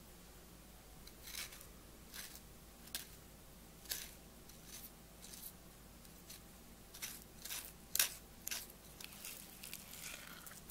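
Small knife scoring the soft flesh of a halved Hass avocado in a cross-hatch, the blade ticking against the skin in short, faint clicks about once a second. Near the end, a spoon scrapes the flesh out of the skin.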